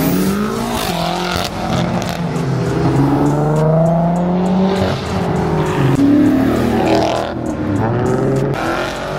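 Car engine revving, its pitch rising and falling several times.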